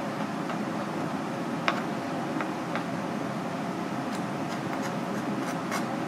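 Knife clicking and tapping against a cutting board as raw red clam flesh is sliced and trimmed: one sharp click about two seconds in, a couple of fainter ones after it, and a quick run of light ticks near the end. A steady hum runs underneath.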